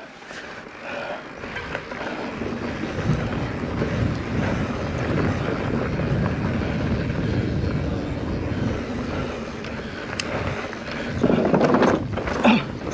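Wind rushing over the microphone mixed with mountain bike tyre and trail noise while riding, building up over the first couple of seconds, with louder rough bursts near the end.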